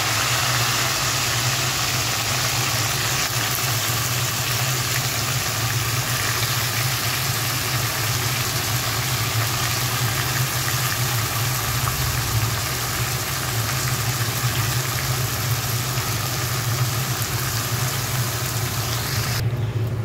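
Slices of raw taro root frying in hot mustard oil in a steel kadai: a steady, loud sizzle that cuts off suddenly near the end. A steady low mechanical hum runs underneath.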